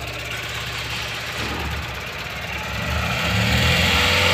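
Tata Ace Gold's engine idling steadily; about three seconds in, the electric radiator cooling fan switches on and its whir rises and then holds. This is the sign that the coolant has reached the fan's switch-on temperature after bleeding the air from the system.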